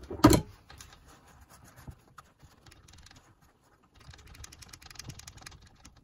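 Faint rapid clicking and rustling from a switch on a vintage radio-cassette circuit board being worked back and forth and wiped with a paper towel while it is cleaned with contact cleaner. A denser run of clicks comes about four seconds in, and a brief loud noise is heard at the very start.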